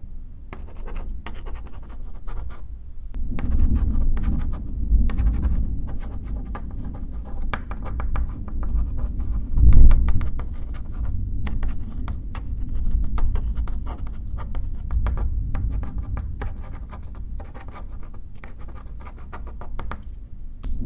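A pen writing on paper in quick, irregular scratchy strokes. A deep rumble of distant thunder rolls in about three seconds in and is loudest near the middle.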